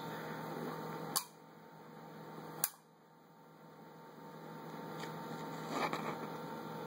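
Low room hum with a steady background hiss, broken by two sharp clicks about a second and a half apart; after each click the background noise drops away, then slowly creeps back up.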